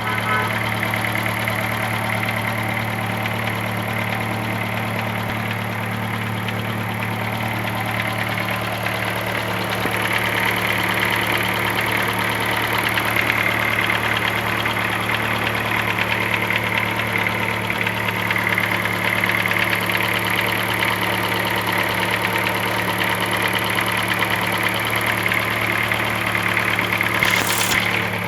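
Chevrolet Celta 2007 Flex Power four-cylinder engine idling steadily, with an unexplained mechanical noise that the owner wants diagnosed. A brief hiss comes near the end.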